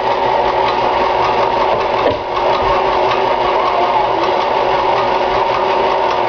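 KitchenAid stand mixer running at a high speed, its motor humming steadily as the beater whips eggs in the bowl, with a brief dip about two seconds in.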